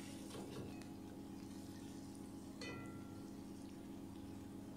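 Sliced onions frying quietly in oil in a steel pot: a faint sizzle under a steady low hum, with a light ringing metallic clink about two and a half seconds in.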